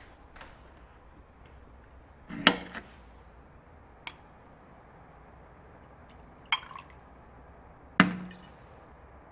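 Small hard objects being handled and set down: four sharp knocks and clinks, the loudest a double one about two and a half seconds in and another at about eight seconds, each with a brief ring.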